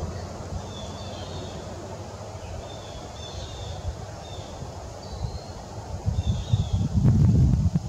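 Low wind rumble on the microphone, swelling loudest near the end, with faint, short, high bird chirps repeating in the background.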